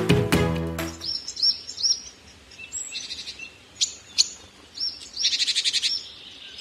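Background music ends about a second in, giving way to birdsong: short high chirps, then a rapid trill near the end.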